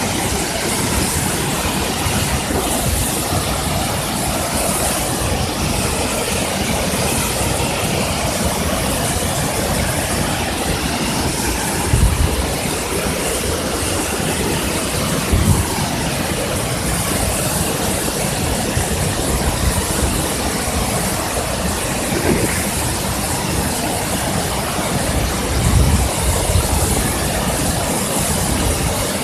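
Waterfall: a steady, loud rush of falling water, with three brief low thumps along the way.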